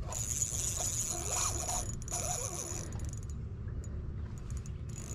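Spinning reel whirring steadily as a hooked smallmouth buffalo fights on the line, with a short break near two seconds; it stops about three seconds in, leaving only faint clicks.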